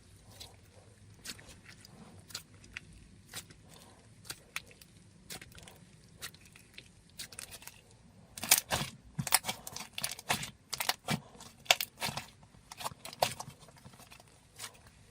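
Thick, glossy clay slime being squeezed and worked by hand, giving irregular small pops and clicks, sparse at first and coming thick and fast from about eight seconds in.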